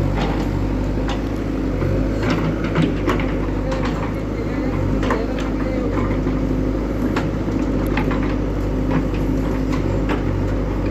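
Diesel engine of a JCB 3DX backhoe loader running steadily under load while loading mud, with scattered knocks and clanks throughout.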